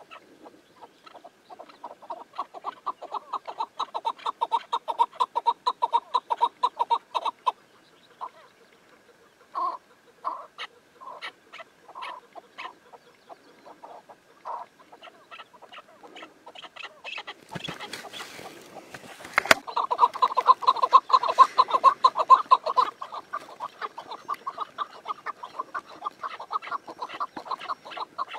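Chukar partridges calling in long runs of rapid, repeated clucking notes, with scattered single notes between the runs. About two-thirds of the way through there is a brief rustle and one sharp click.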